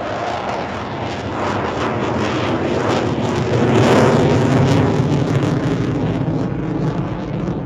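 A fixed-wing aircraft flying past: a broad engine roar that swells to its loudest about four seconds in, then fades.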